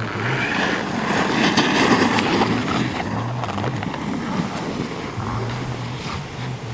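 Hard-boot alpine snowboard carving past on packed snow, its edge scraping in a hiss that swells to a peak about two seconds in and then fades, over a low wavering hum.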